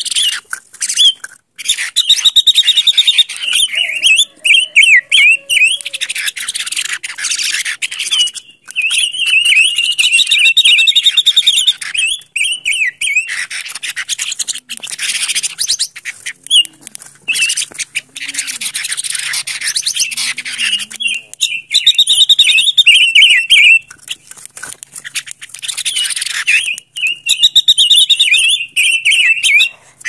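Silver-eared mesia singing: several bursts of fast, warbled notes a few seconds long, with pauses between, over heavy hiss.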